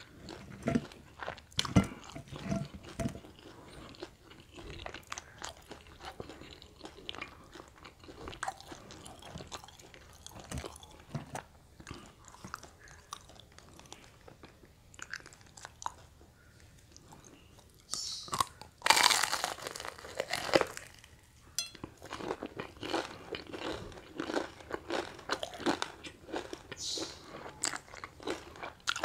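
Close-miked crunching and chewing of crispy deep-fried snacks (bakwan vegetable fritters, fried tofu and risol), with crisp batter crackling as it is picked apart and bitten. The loudest stretch of crackling comes about two-thirds of the way in.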